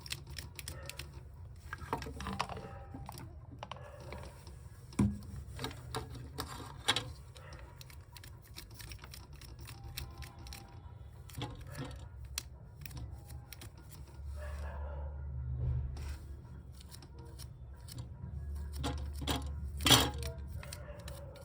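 Scattered light clicks, taps and scratchy rubbing of hands working on a circuit board, scrubbing it clean with thinner. A low hum comes in about two thirds of the way through.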